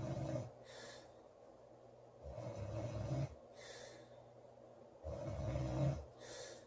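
A woman snoring in her sleep with a regular rhythm. Each breath brings a low, rattly snore followed by a short airy puff, about every two and a half to three seconds, three times over.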